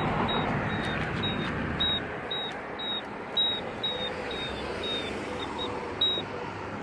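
Campbell accessible pedestrian signal push buttons sounding their locator tone: short, high beeps repeating about twice a second, over steady traffic noise.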